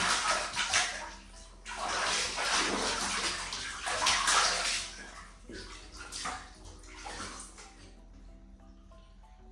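Water splashing in a plastic basin as a baby monkey thrashes about in it, in repeated bursts that die away about eight seconds in.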